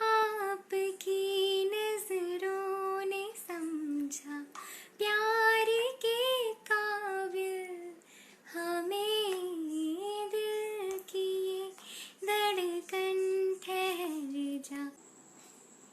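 A high voice singing a melody in short phrases of held, steady notes with brief gaps between them. The singing stops near the end.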